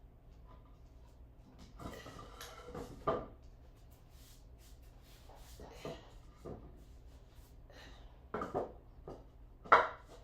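Scattered knocks, bumps and rubbing from tools being handled and set down on a hard floor, a few louder knocks near the end.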